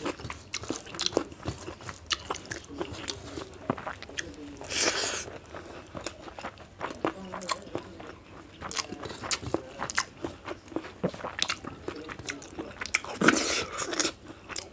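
A person chewing and biting food close to the microphone, with many short crisp crunches and mouth clicks. Two longer hissing sounds come about five seconds in and near the end.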